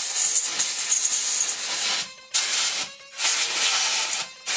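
Compressed-air blow gun hissing as it blows dust out of an angle grinder's gear head. A long blast is broken by short pauses about two and three seconds in and again near the end.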